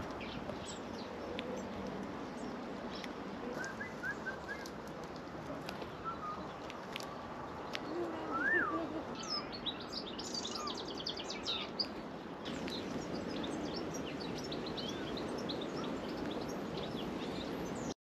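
Small songbirds calling in short high chirps and quick trills, more busily about ten seconds in, with a louder call that rises and falls about eight and a half seconds in, over a steady hiss of outdoor background noise.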